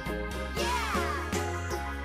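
Background music with a steady beat and bass line. About half a second in, a falling, swooping effect glides down over it.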